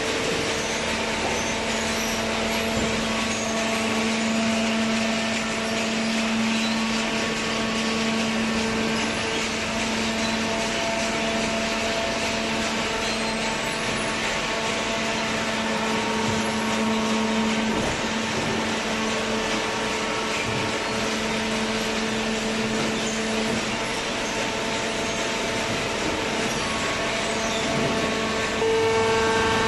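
Hydraulic paper baler's electric motor and pump running with a steady hum and whine. Near the end it gets louder and its tone changes.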